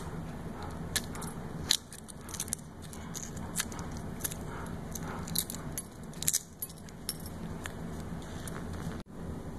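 Century egg's shell crackling in sharp, irregular clicks as it is peeled off by hand, over a steady low hum.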